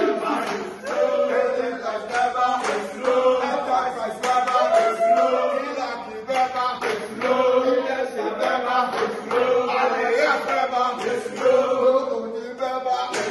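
A mixed group of men and women chanting a cheer song together in unison, with hand claps keeping a steady beat.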